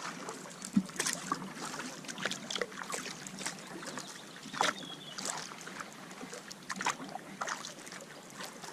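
Kayak paddling: the paddle dipping and pulling through the water, with irregular small splashes and drips.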